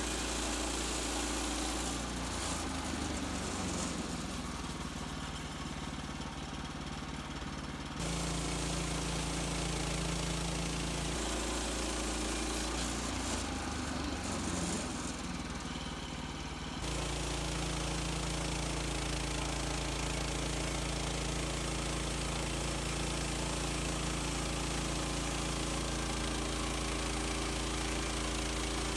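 Gas engine of an HM130 Max portable bandsaw mill running steadily as its new band blade saws through a white pine log. The sound shifts abruptly twice, about a third of the way in and again a little past halfway.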